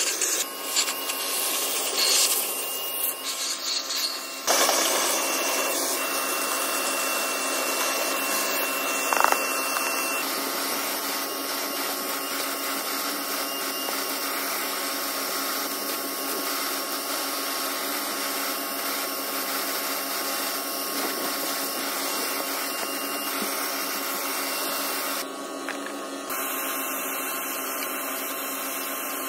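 Shop vac running, its hose nozzle sucking dirt and debris off a truck's cab floor and seat. The sound is uneven for the first few seconds as the nozzle moves over debris, then steady, with a brief drop in level near the end.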